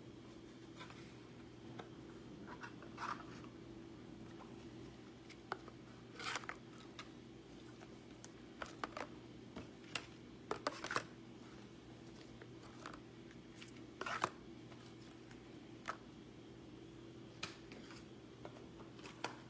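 Faint scattered clicks and rustles of small objects being handled, over a steady low hum, with the loudest rustle about two thirds of the way through.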